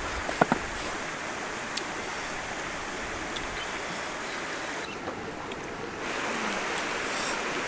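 Steady rush of flowing river water, with two sharp clacks in quick succession about half a second in as a clay lid is set down on a cooking pot.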